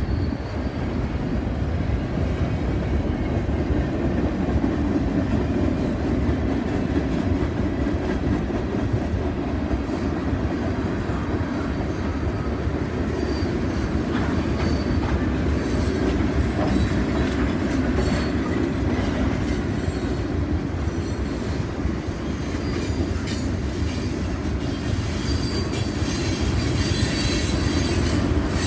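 Pan Am Railways freight train's cars rolling past on the rails: a steady rumble of steel wheels on track, with scattered clicks and knocks, more of them in the second half.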